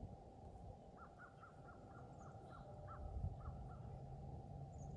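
Shortwave receiver hiss through the transceiver's narrow CW filter as it is tuned down the 15-metre band. About a second in, a bird gives a quick run of about ten short calls.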